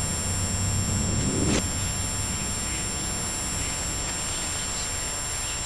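Steady low hum under an even hiss, with one short click about a second and a half in.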